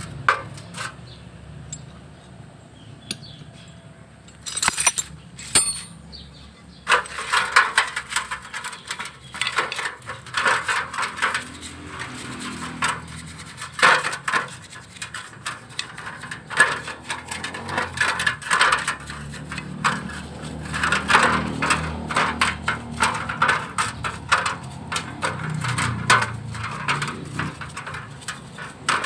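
Hand work on small metal parts: a couple of isolated scrapes about five seconds in, then fast, irregular clicking and scraping that keeps on from about seven seconds in.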